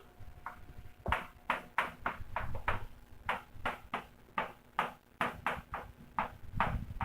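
Repeated short, sharp taps of handwriting, about three a second and unevenly spaced, starting about a second in, as equations are written out by hand.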